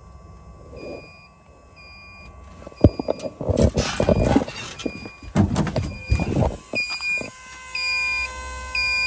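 A portable jump starter hooked to a semi truck's engine beeps steadily and evenly, growing louder and longer near the end. A burst of knocks and clatter in the middle comes from the truck's cab door and someone climbing down out of the cab.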